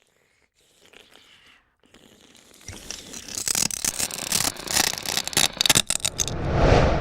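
Scraping and rustling noises with many quick sharp clicks, faint at first and growing loud from about three seconds in, then a swelling whoosh near the end.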